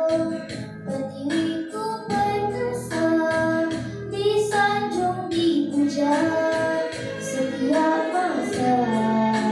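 A young girl singing a patriotic song solo into a microphone over an instrumental backing track.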